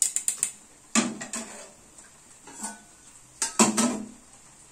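Steel spider skimmer clinking and scraping against a steel kadai and strainer in about four short bursts while fried onions are lifted out of the oil.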